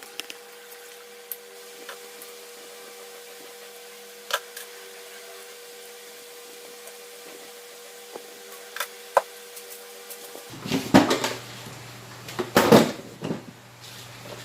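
Handling noises of taking out a refrigerator's temperature sensor and unplugging its wires: a few faint scattered clicks over a steady hum, then louder clatters about eleven and thirteen seconds in.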